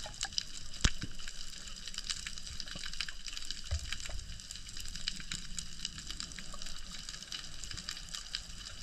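Underwater ambience: a steady hiss dotted with many scattered clicks and crackles, with one sharper click about a second in and a low thump near four seconds.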